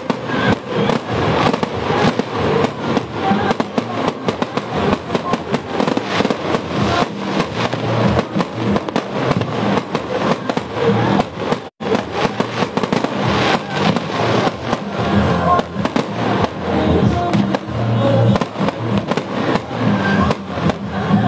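Fireworks going off in rapid succession: a dense, unbroken stream of bangs and crackles. The sound cuts out for an instant a little past halfway.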